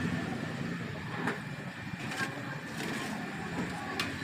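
Busy street ambience: steady traffic noise mixed with the hiss of samosas frying in a wok of hot oil, with a few sharp clicks.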